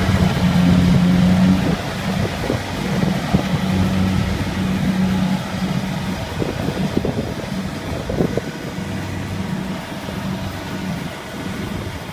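Small tracked rice combine harvester running steadily as it cuts and threshes rice: an engine hum with the machinery churning under it and a few irregular rattles partway through. It grows gradually fainter as the machine moves away.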